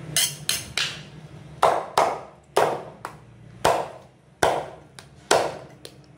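Meat cleaver chopping through a rack of lamb ribs on a thick wooden chopping block: about ten sharp chops, the first few quick, then roughly one a second.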